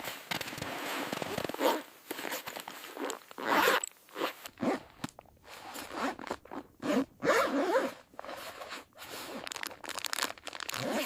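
Irregular crunching and rustling in short bursts of varying length.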